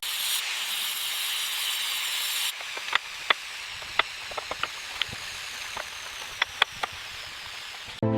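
A steady hiss for about two and a half seconds, then a softer hiss with scattered sharp clicks and ticks.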